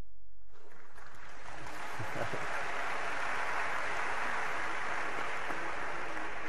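Audience applauding, starting about half a second in, strongest in the middle and easing slightly toward the end.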